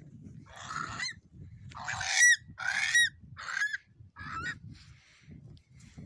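Curlew calls: about five harsh calls, each ending in a short rising note, the loudest about two and three seconds in. A low rumbling noise lies underneath.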